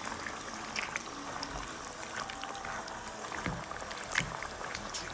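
Chicken and tomatoes simmering in watery gravy in a pan, with a spatula squishing and mashing the softened tomatoes. There are a few light clicks of the spatula against the pan.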